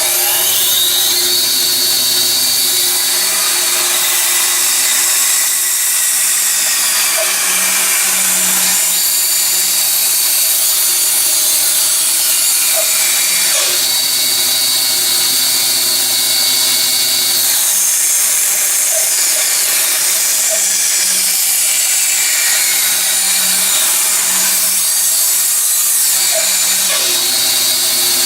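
Electric woodworking saw running steadily while cutting out a toy car shape from a board, its motor hum shifting slightly a few times as the blade works through the wood.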